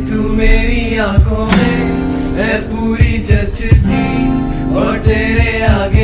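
A song: a voice singing over acoustic guitar, with percussion beneath.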